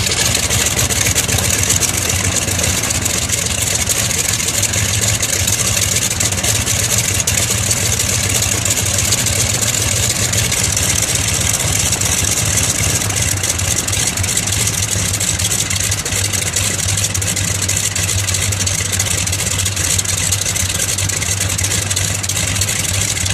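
Pratt & Whitney R-985 Wasp Junior nine-cylinder air-cooled radial aircraft engine running steadily with its propeller turning, warming up just after a cold start.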